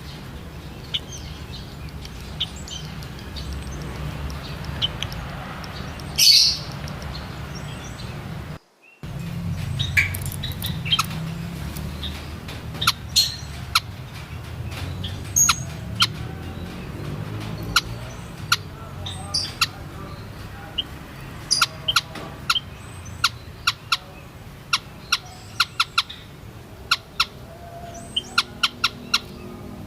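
White-headed munia (Lonchura maja) giving short, high, sharp chirping calls, sparse at first and then in quick runs of clicky notes from about ten seconds in. A steady low hum runs underneath.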